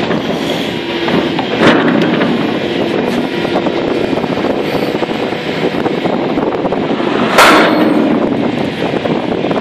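Excavator-mounted Terminator DX 1800 hydraulic breaker hammering its chisel into hard limestone in a rapid, continuous rattle, with the excavator's engine running underneath. Two louder sharp cracks stand out, one about a second and a half in and one near the end.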